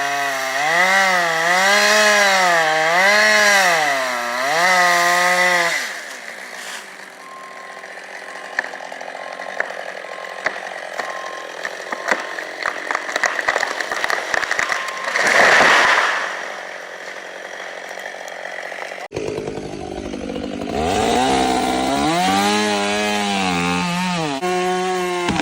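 Two-stroke chainsaw running under cutting load, its engine pitch rising and falling as it works through wood. It drops away about six seconds in to a quieter stretch of crackling and snapping with a brief rushing swell midway, then after an abrupt change a chainsaw is heard cutting again, its pitch again rising and falling.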